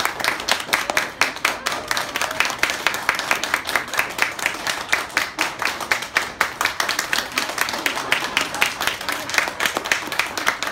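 Audience applauding: many hands clapping steadily and quickly, with no break.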